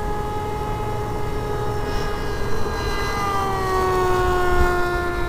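Electric motor and propeller of a RiteWing Zephyr ZII flying wing, an NTM 35-42A 1250Kv brushless outrunner, whining steadily in flight. About three seconds in, the whine grows louder and its pitch sags slightly as the wing banks and changes throttle.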